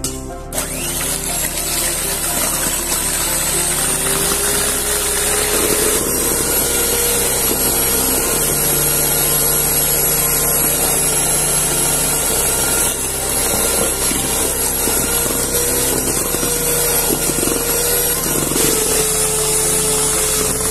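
Electric kitchen mixer running steadily, starting about half a second in, with a high whine over the motor's hum; its pitch rises a little about four seconds in.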